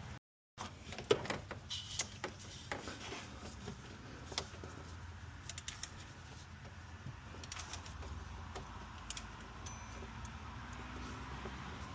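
Scattered light clicks and rattles of hands and tools working a ribbed rubber A/C drive belt over the engine's pulleys, over a low steady hum.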